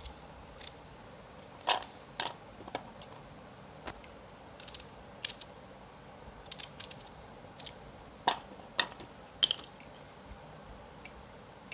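Light, scattered clicks and knocks of cut onion pieces being put into a vegetable chopper, a dozen or so at irregular intervals.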